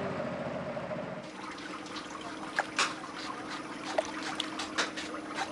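Water trickling and dripping over a steady low hum, with a few sharp clicks and taps in the second half.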